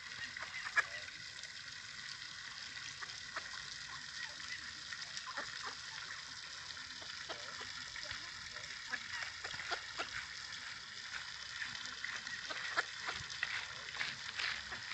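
A flock of waterbirds calling, many short overlapping calls over a steady hiss, growing busier and louder near the end.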